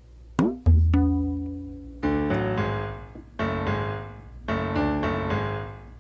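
Background piano music: a quick falling tone, a held low note, then three struck piano chords that ring out.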